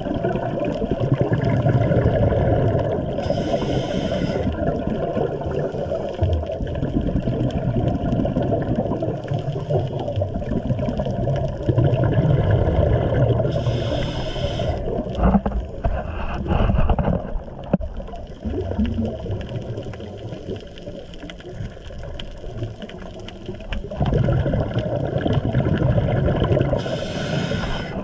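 Scuba regulator breathing heard through an underwater camera housing: surges of rumbling exhaust bubbles, with a short breathy hiss about three seconds in, again around fourteen seconds and near the end. A few faint knocks come in the middle.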